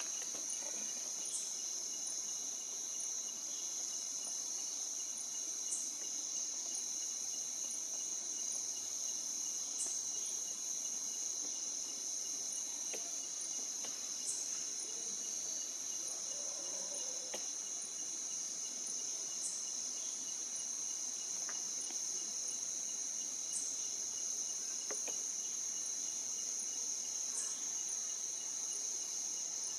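Steady, high-pitched chorus of insects, with a short, even higher note standing out about every four seconds.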